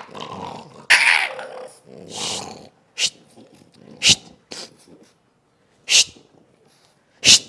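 Young French bulldog growling and snarling while held on its back, in two noisy bursts in the first couple of seconds, then four short sharp sounds spaced a second or two apart. It is the aggressive growl of a dog that resents being handled, described as really fierce ("galak banget").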